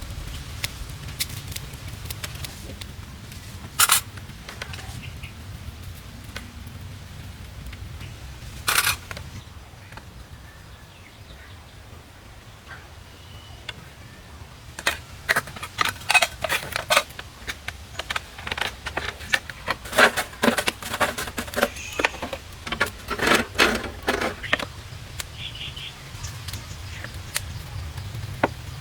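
Sharp knocks and clicks over a steady low rumble: a single knock about four seconds in and another near nine seconds, then a quick, uneven run of clicks and knocks through the middle to late part that stops suddenly.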